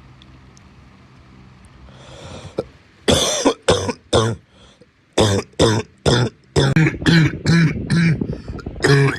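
A man's harsh barking cough: a breath in about two seconds in, then about a dozen short, sharp coughs in three quick fits, the later ones hoarse and voiced.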